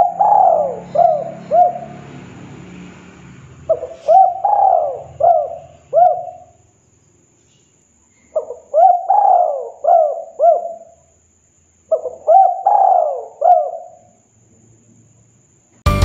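Spotted dove (tekukur) cooing: four phrases of several quick, rising-and-falling coo notes, each phrase about two seconds long with short pauses between.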